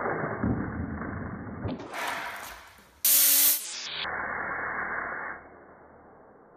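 Compressed air hissing from an air-compressor hose in a few blasts, the loudest a short, sharp one about three seconds in; the hiss stops a little after five seconds.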